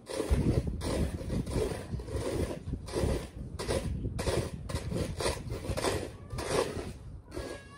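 Snow being dug and scraped: irregular crunching scoops, about two a second, over a low rumble.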